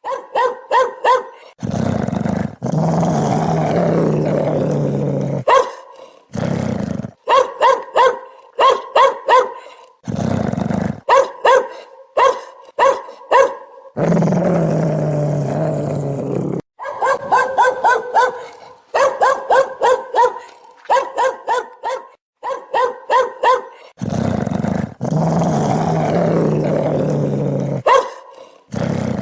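Dog-barking ringtone: quick runs of four to six sharp dog barks alternate with longer, low, rough stretches of three to four seconds. The sequence repeats as a loop.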